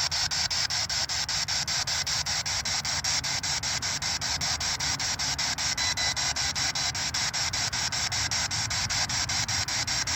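Steady static hiss, pulsing evenly several times a second.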